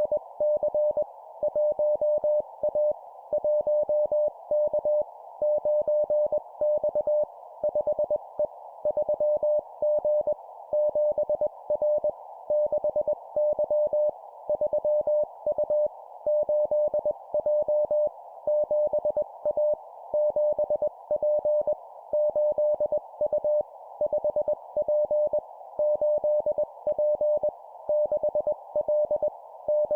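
Morse code (CW) sent at 20 words per minute: a single steady beep keyed on and off in dots and dashes, in short two-character groups of numbers and letters with a brief pause between each group, over a narrow band of hiss.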